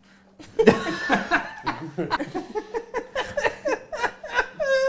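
People laughing hard together: a fast run of short, pulsed laughs that overlap, ending in a longer high-pitched laugh near the end.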